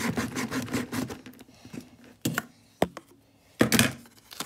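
A cardboard product box being worked open by hand: quick rubbing and scraping of fingers and card, then a few sharp clicks or taps, and a short louder scrape near the end.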